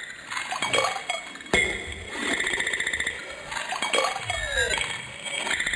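Electronic show soundtrack: every few seconds a burst of rapid, glassy chiming pulses, with curving, sweeping tones between the bursts. A sharp hit comes about a second and a half in.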